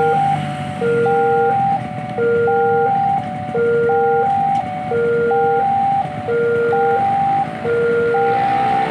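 Level crossing warning alarm: an electronic chime of three alternating tones, repeating in a steady cycle about every 1.4 s, over the low rumble of road traffic waiting at the crossing.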